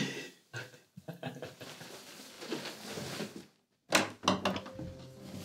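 Quiet shuffling movement, then a brief silent break and, about four seconds in, a few sharp clicks and knocks of a panelled interior door's handle and latch as the door is opened.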